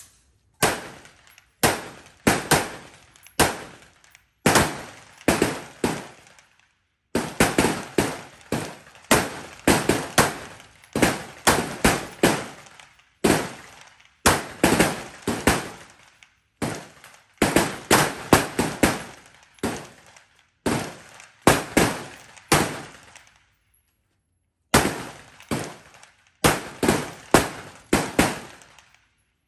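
Rifle fire from several shooters on a firing line: dozens of sharp, irregular shots, some in quick pairs, each with a short echo trailing off, with a few brief pauses between strings.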